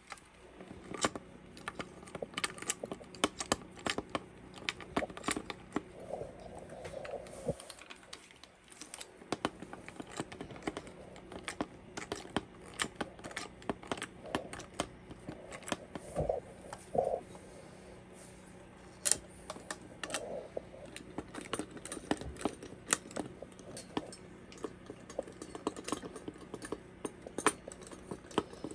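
Socket wrench turning a Remington 870 stock bolt into the butt stock: many light, irregular metallic clicks and taps, pausing briefly about eight seconds in.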